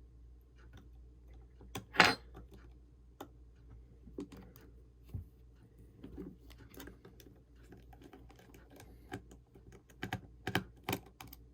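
Scattered light clicks and taps of a small screwdriver and tiny parts handled on an opened iPhone 6 as its battery bracket is refitted and screwed down. The sharpest click comes about two seconds in, with a quick run of clicks near the end.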